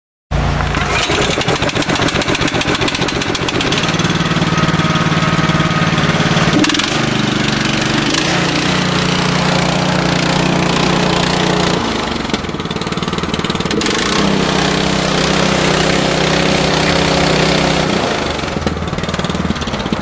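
Honda GX240 8 hp single-cylinder four-stroke engine on a Stow towable concrete mixer, running steadily; its note shifts a few times.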